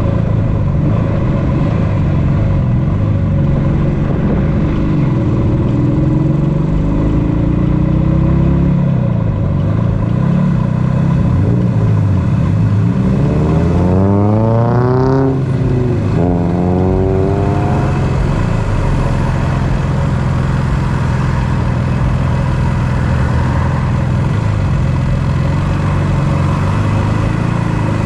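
Two-stroke parallel-twin engine of a 1976 Yamaha RD400 motorcycle running in traffic. About halfway through, the revs rise, drop at a gear change, and rise again as the bike pulls away, then settle to steady running.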